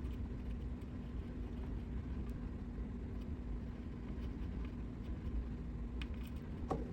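A steady low hum with a faint steady tone, with a few faint ticks near the end.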